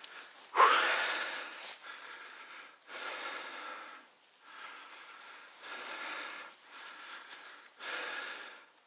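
A man breathing hard and out of breath from walking through deep snow: loud breaths in and out every second or two, the first one, just after the start, the loudest.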